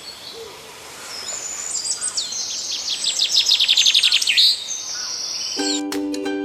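Birds singing and chirping, with a fast trill of repeated notes in the middle. Light instrumental music begins near the end.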